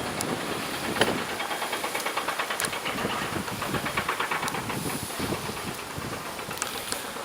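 Golden retriever puppies running close by, making a quick rhythmic hissing, several pulses a second, with a sharp knock about a second in.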